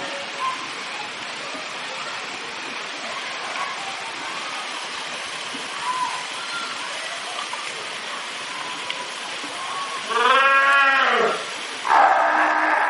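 Cape fur seals calling: two loud bleating calls near the end, the first drawn out with its pitch rising and then falling, the second harsher. Visitors' voices murmur in the background.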